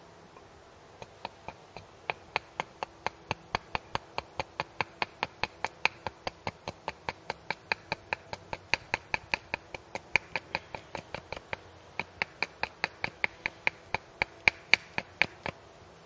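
Hatchet chopping a wooden wedge blank held upright on a chopping block, in quick, light strokes that make sharp knocks about four a second as the wedge is tapered. The knocks start about a second in and stop just before the end, with the loudest ones near the end.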